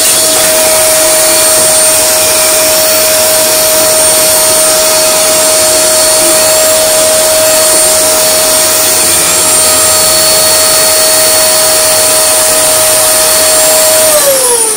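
Dyson DC24 upright vacuum cleaner running at full speed: a steady whine over rushing air. Near the end it is switched off and the whine falls away as the motor winds down.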